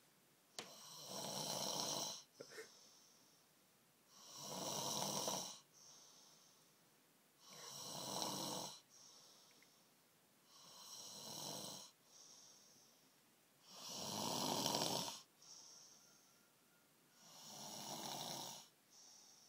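A man snoring really loud in his sleep: six long snores about three seconds apart, each followed by a softer breath out.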